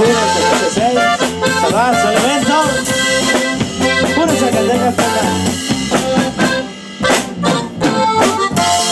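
Instrumental break of a live corrido band: a twelve-string guitar strumming a steady rhythm under a lead melody with bass.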